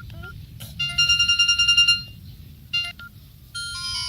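Samsung GT-E1270 phone previewing ringtones. After a click, a fast-pulsing electronic ringtone plays for about a second at roughly ten pulses a second and cuts off. A short key beep follows, and another ringtone's melody starts near the end.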